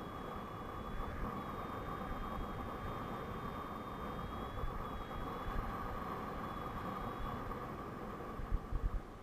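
Airflow rushing over the camera microphone of a paraglider in flight, a steady noise with a faint high whistle coming and going. Near the end a few low thumps as the pilot lands on the field.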